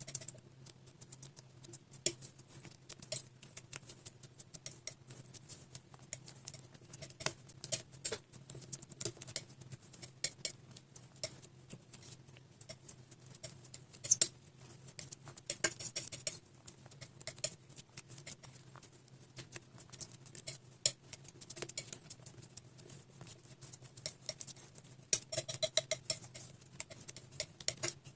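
Slime being squished and mixed by hand: irregular sticky clicks and crackling pops, with denser bursts near the middle and toward the end, over a faint steady low hum.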